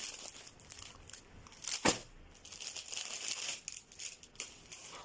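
Packaging crinkling and rustling as a parcel is handled and opened, with one sharp snap about two seconds in.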